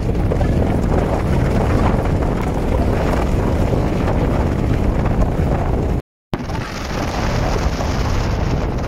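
Strong wind buffeting the microphone, a loud steady rumbling rush with no words; the sound drops out completely for a moment about six seconds in.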